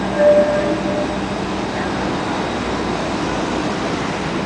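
Low-floor Alstom Citadis tram moving away along its track, a steady rumble and hum of wheels and drive. A short high tone sounds about a quarter second in and stops before the second mark.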